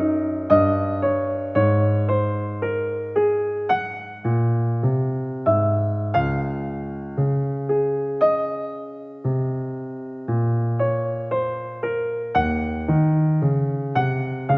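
Background music: a gentle piano or electric piano piece, chords and notes struck at an easy pace, each one fading before the next.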